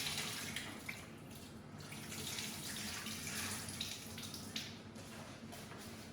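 Water running from a tap into a sink, its splashing rising and falling in strength, with a few small knocks.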